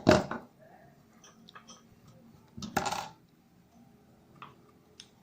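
Handling noise of small tools and parts on a work surface: a loud clattering knock at the start, a second one about three seconds in, and a few light ticks between.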